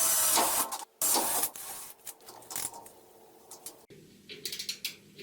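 Ratchet spanner clicking as a bolt is tightened: two loud runs of ratcheting in the first second and a half, then quieter scattered clicks and knocks.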